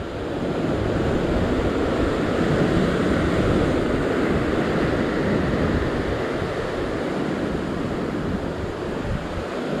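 Ocean surf breaking and washing over coastal rocks, a steady rushing that swells about a second in, with wind on the microphone.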